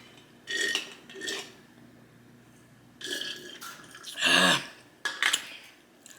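A person eating close to the microphone: a few short mouth and handling noises, and a loud burp about four seconds in.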